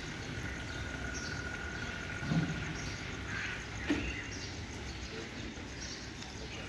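Outdoor street background noise with faint bird chirps, a thin steady whistling tone in the first half, and two brief soft knocks a second and a half apart.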